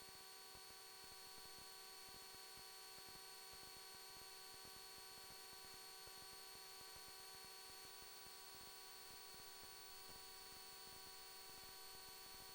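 Near silence: a faint, steady electrical hum and hiss with several constant high whining tones.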